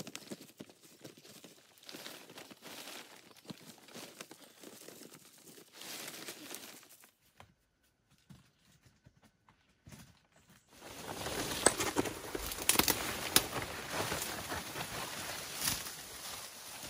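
Leaves and foliage rustling and crinkling as they are handled, with scattered snaps and knocks. A few seconds of near silence in the middle, then louder, denser rustling with sharp snaps.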